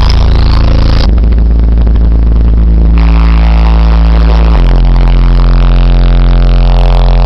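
Two 15-inch Kicker CVX subwoofers, powered by a 5,500-watt amplifier, playing bass-heavy music very loud inside the car cabin: long held bass notes that step to a new pitch three times, loud enough to overload the recording.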